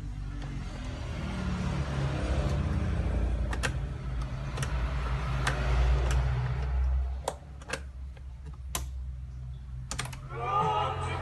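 Sharp clicks and clunks from a BASF CC 9201 portable cassette recorder's keys and tape mechanism being worked, over a low rumble. Music begins playing from the tape near the end.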